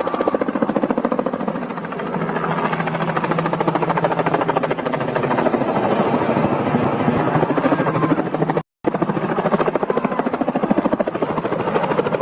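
Light two-bladed helicopter's rotor chopping rapidly and steadily overhead. The sound cuts out for an instant about three-quarters of the way through.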